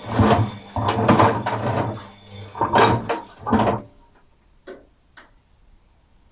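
Washing machine mid-wash: the drum turning with water and the wet load sloshing in several loud surges over a faint motor hum, then two short knocks near the end.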